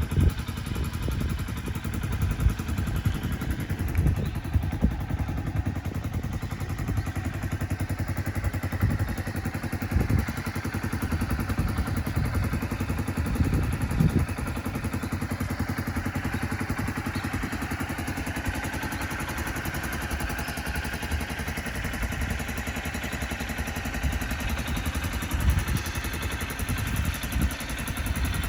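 Suzuki Skywave 250 (CJ43A) scooter engine running steadily, with a few short knocks or clatters now and then.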